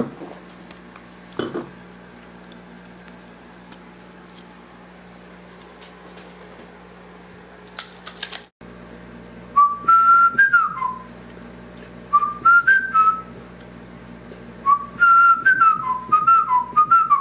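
A person whistling a tune in short phrases of stepped notes, starting about halfway through, over a steady low hum. Before the whistling there is only the hum and a few faint clicks.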